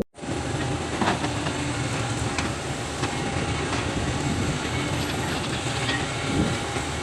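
Sumitomo SH350 excavator at work: its diesel engine running steadily with a faint steady whine above it and occasional sharp metallic clanks.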